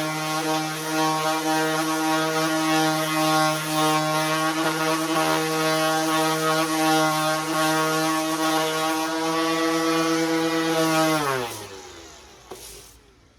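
Electric orbital sander running steadily, its motor hum over the hiss of fine-grit sandpaper on a wooden rifle stock, then switched off about eleven seconds in, its pitch falling as it spins down. A light click follows near the end.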